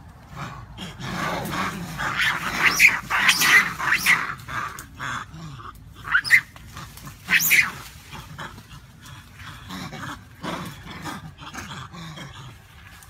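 Macaques screaming in a fight: a run of shrill screams from about one to four seconds in, two sharp rising shrieks around six and seven and a half seconds, then quieter, lower calls.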